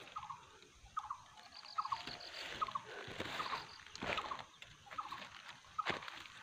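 A bird calls in short chirps that repeat about once a second. Footsteps crunch and rustle through forest undergrowth, with a few sharp snaps.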